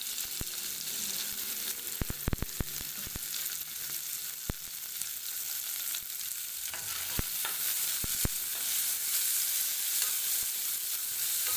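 Sliced onions and green chillies frying in hot oil in an aluminium pressure cooker: a steady sizzle with scattered clicks and knocks as the chillies go in and a spatula stirs. The onions are being sautéed until they change colour.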